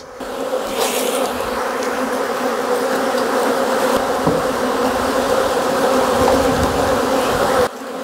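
Loud, steady buzzing of a mass of honeybees in flight around an opened hive: a strong colony stirred up and defensive while its frames are worked and bees shaken into a new box. The hum drops away suddenly near the end.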